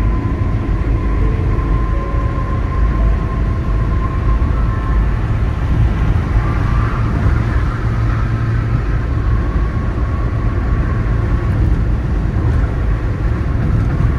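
Steady low rumble of a car driving along a highway: tyre and engine noise at cruising speed.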